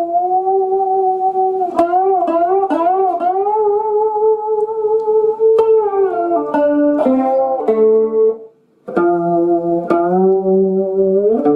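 Cigar box guitar played solo: a picked melody whose notes slide and waver in pitch. It breaks off for about half a second a little past the middle, then comes back with lower notes added.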